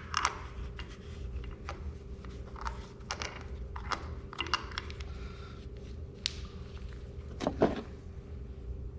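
Bolts and small metal parts being picked out and handled: scattered light clinks and knocks over a steady low hum.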